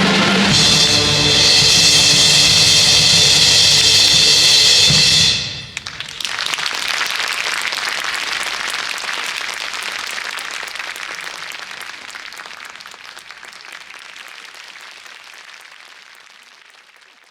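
School wind band with drum kit ending a Eurobeat-style medley on a loud held final chord that cuts off about five seconds in. Audience applause follows and slowly fades away.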